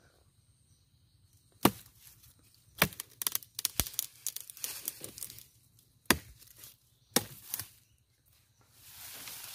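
Sickle blade chopping into a leafy sengon jawa branch: about five sharp chops a second or so apart, with the leaves rustling between strokes and a longer rustle of leaves near the end.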